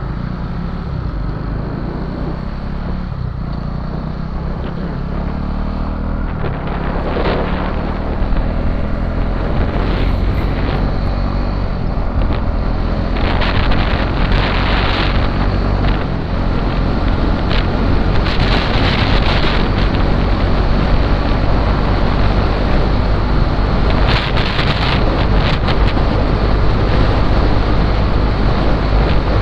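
Motorcycle riding along a road, its engine running steadily while wind buffets the microphone. It gets louder about a quarter of the way in as the bike picks up speed, and there are several gusts of wind noise in the second half.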